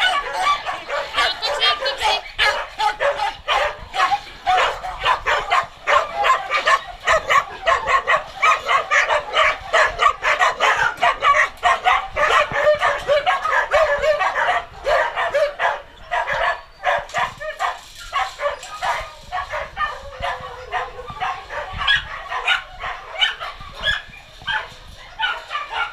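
Many kennelled dogs barking and yipping at once, a continuous chorus of overlapping barks that thins out somewhat in the second half.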